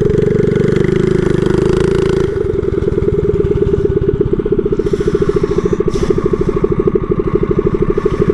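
Mini bike engine running while riding: hard on the throttle for about two seconds, then easing off to a slower, plainly pulsing run.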